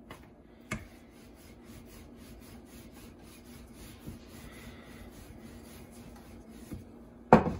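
Wooden rolling pin rolling out paratha dough on a floured granite countertop, a soft steady rubbing. There is a light knock about a second in and a loud knock near the end.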